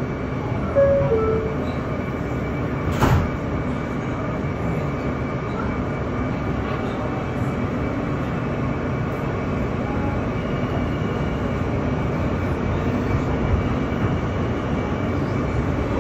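R160B subway train running steadily at speed through the tunnel between stations. There is a short two-note squeal about a second in and a single sharp knock about three seconds in.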